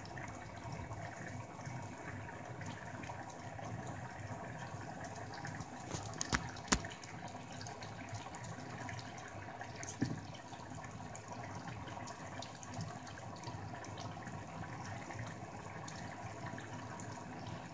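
Pot of red lentils simmering in a stainless steel saucepan, a steady bubbling hiss. A few sharp clicks about six to seven seconds in and once more about ten seconds in.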